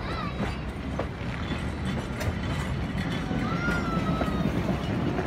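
Heritage steam train's passenger carriages rolling past close by: a steady rumble of wheels on rail with scattered clicks and knocks. Two brief high whistling tones, one right at the start and one a little before the end.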